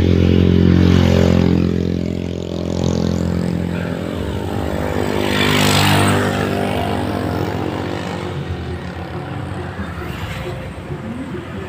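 Motor vehicles passing close on the road: engine noise swells loudest near the start and again about six seconds in, each time with a changing engine pitch as the vehicle goes by, then fades to a lower rumble.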